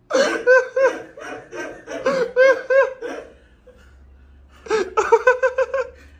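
High-pitched, hard laughter in rapid 'ha-ha-ha' pulses, about five a second: one long bout of about three seconds, then a second shorter bout just before the end.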